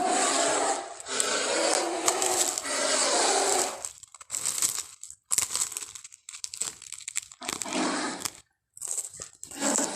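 Doedicurus sound effect: rough crunching, crackling noise. It comes in long bursts for the first four seconds, then in shorter bursts separated by brief silences.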